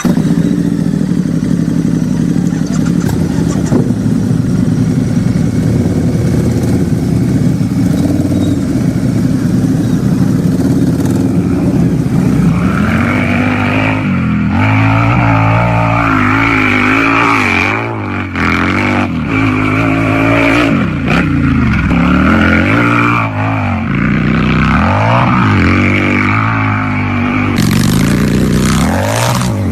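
Harley-Davidson V-twin motorcycle engine running with a loud exhaust, steady at first. From about twelve seconds in it is revved again and again, the pitch rising and falling with each blip of the throttle.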